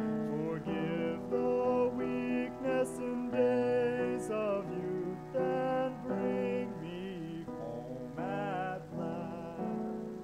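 A cantor's solo male voice singing a liturgical chant, note by note, over held keyboard chords. Near the end the voice holds a note with vibrato.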